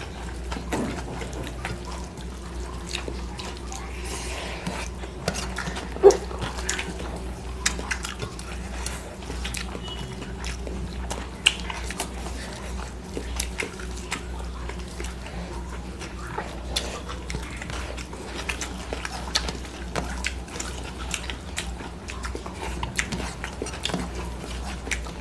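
Eating sounds of two people eating rice and curry by hand from steel plates: fingers mixing rice on the plates and chewing, heard as many small scattered clicks and smacks, with two sharper knocks about six and eleven seconds in. A low steady hum runs underneath.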